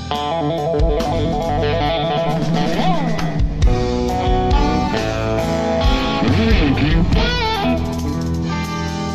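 Electric guitar playing a rock instrumental lead over bass guitar and drums, with notes that bend and waver in pitch several times.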